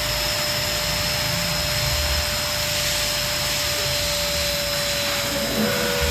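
Electric balloon pump running steadily, a motor hum with a steady tone over a rush of air as it inflates a balloon.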